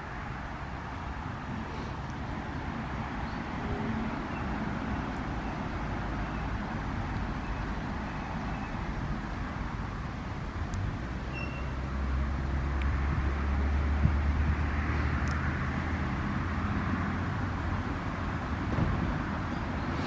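Wind on the microphone: a low rumble over a steady outdoor hiss, with a gust swelling the rumble for a few seconds past the middle.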